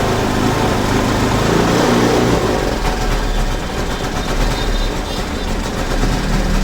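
Suzuki Access 125 scooter's single-cylinder four-stroke engine running under throttle, its revs rising and falling unevenly for the first couple of seconds and then running rough. This is the misfire and jerking that comes on when the throttle is opened, which the mechanic suspects comes from the newly replaced air-intake hose pipe between the air filter and the carburettor.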